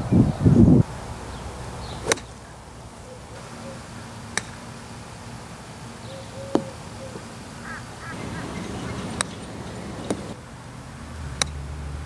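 Golf club striking the ball, about six sharp clicks a second or two apart over an outdoor background. A brief low rumble comes in the first second, and faint chirps are heard around the middle.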